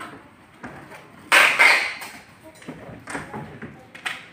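Packing work on stacked PVC bathroom doors: a loud rasping, tearing burst about a second and a half in, then a few lighter knocks and scrapes.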